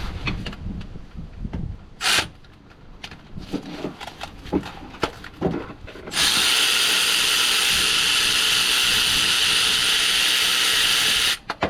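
A few seconds of scattered metal clicks and knocks, then a power tool running steadily for about five seconds to take out a bolt, cutting off suddenly.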